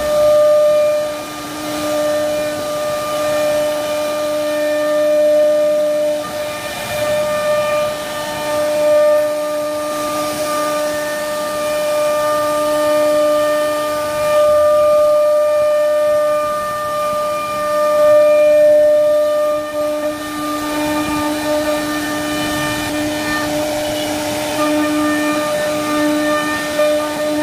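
CNC router spindle whining at a steady high pitch while its bit carves a wooden door panel, with the hiss of the bit cutting through the wood.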